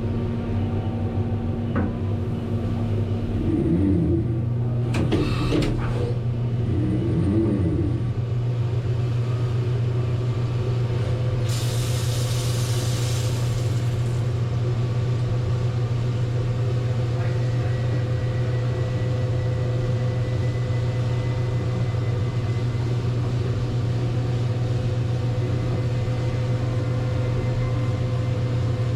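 Haas DM-1 CNC vertical mill running with a steady machine hum. Short sounds that bend in pitch and a few clicks come between about three and eight seconds in, and a hiss lasts about two seconds near the middle.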